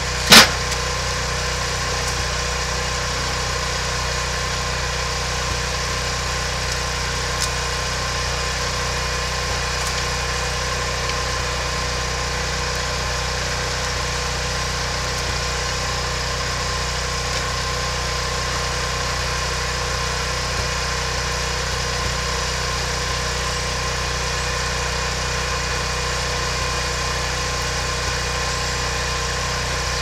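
A steady machine drone, like an engine idling, runs unchanged throughout. One sharp knock comes about half a second in, louder than anything else.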